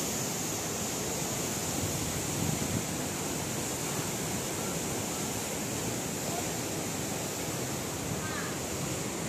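Water rushing steadily at a dam's gates: an even, unbroken noise.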